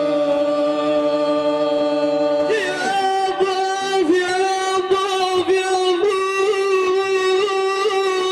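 A man chanting Iraqi madih (devotional praise singing) in long held, melismatic notes without clear words. The note steps up in pitch about two and a half seconds in and is then ornamented with small wavers.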